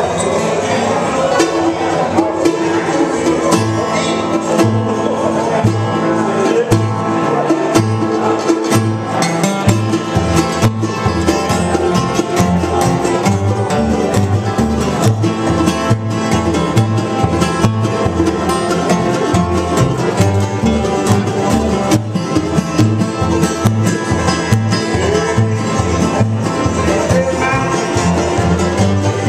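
Acoustic bluegrass jam: steel-string guitar, mandolin and banjo playing together over an upright bass. The bass plucks a steady beat about twice a second, coming in after about a second.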